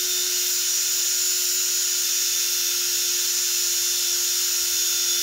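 Cordless drill running wide open at a steady high speed, spinning an engine tappet chucked in it while the tappet is sanded with 80-grit paper held against it. An even, high whine that holds one pitch throughout.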